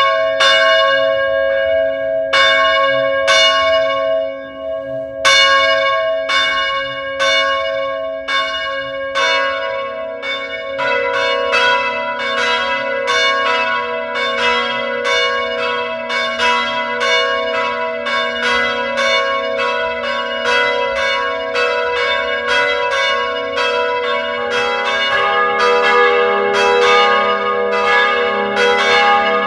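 Church bells ringing: separate strokes about a second apart at first, with a short pause, then from about ten seconds in several bells sounding in quicker succession, about two strokes a second, their tones overlapping and ringing on.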